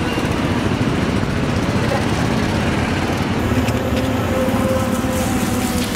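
Busy street ambience: a steady wash of road traffic noise with indistinct voices in the background.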